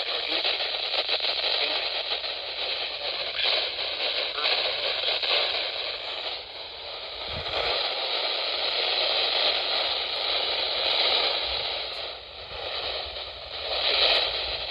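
NOAA Weather Radio broadcast on a weak, patchy signal: heavy static hiss, with the synthesized voice reading a flash flood warning faint and hard to make out beneath it.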